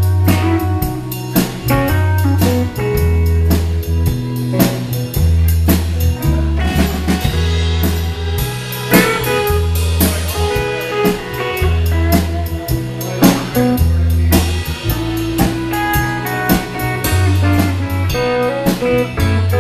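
Live band playing electric guitar over a drum kit and a repeating low bass line, with a steady beat.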